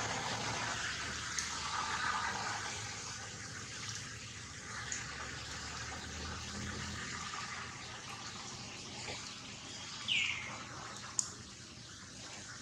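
Steady outdoor background hiss, with a single short, high chirp falling in pitch about ten seconds in.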